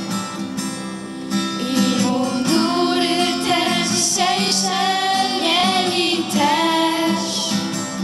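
Young female voices singing a Polish scouting song to acoustic guitar accompaniment.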